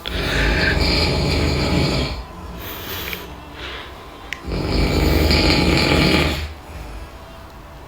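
A man snoring loudly: two long, rough snores of about two seconds each, about four and a half seconds apart, with a quieter stretch between.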